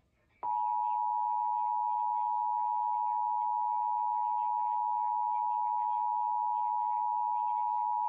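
Emergency Alert System attention signal from a television: a steady two-tone alarm of two close tones sounded together (853 and 960 Hz), starting about half a second in and holding at an even level. It announces a required monthly test of the alert system.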